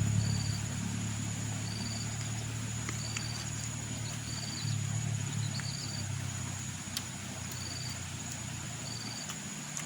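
Outdoor village ambience: a small bird or animal gives short high chirps about once a second or so, over a steady high insect-like whine and a low rumble that fades out after about six seconds, with a few sharp clicks.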